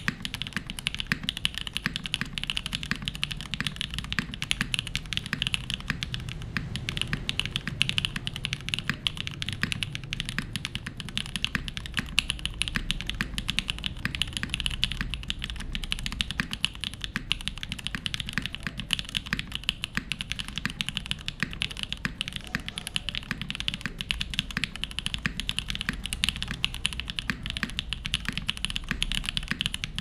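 Continuous typing on a Merisi Ottantaquattro top-mount mechanical keyboard with lubed Gateron Cream Soda switches, an aluminium plate and GMK keycaps: an unbroken stream of keystrokes, several a second, each a short click with a low thud beneath it.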